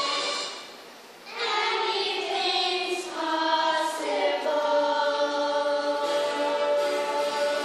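A children's chorus singing a musical-theatre number in long held notes; the singing dips briefly about a second in, then comes back fuller.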